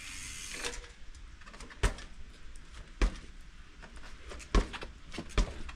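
Specialized P.Trials street-trial bike hopping and landing. Its tyres hit the ground in a series of sharp thuds about a second apart, the loudest about two, three, four and a half and five and a half seconds in.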